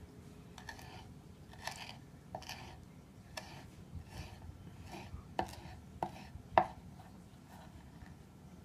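Cilantro being chopped with a knife: irregular light strokes, with three sharper knocks a little past the middle.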